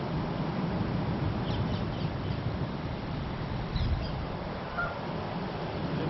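Egyptian goose goslings giving a few faint, high, short peeps, a cluster about one and a half to two seconds in and another near four seconds, over a steady low rumble.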